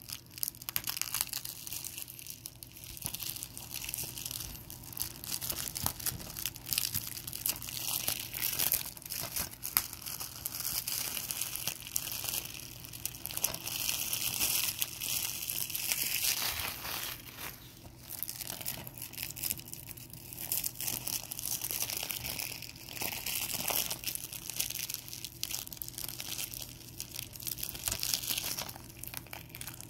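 Plastic shrink-wrap on a DVD case crinkling and crackling, louder and quieter by turns, as it is picked at and peeled off by hand.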